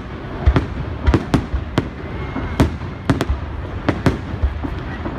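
Fireworks display: aerial shells bursting in a rapid, irregular series of sharp bangs, about a dozen in five seconds, over a continuous low rumble.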